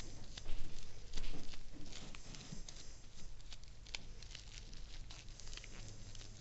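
Irregular light clicks, taps and rustles of small metal parts being handled and fitted by hand, louder in the first second and a half, over a low steady hum.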